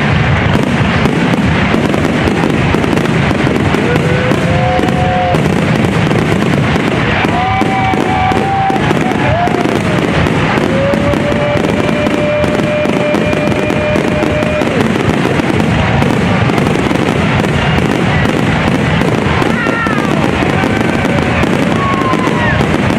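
Fireworks display: a continuous, dense wash of crackling and bangs at an even level, with several held or slowly sliding tones over it.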